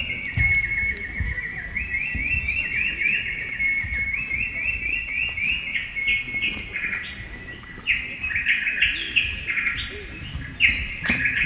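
Bird-like twittering: long runs of short rising chirps, several a second, high in pitch, broken by a few short pauses.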